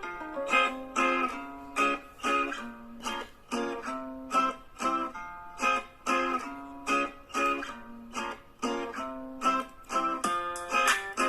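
Background music: a plucked guitar tune with a steady rhythm of about two notes a second.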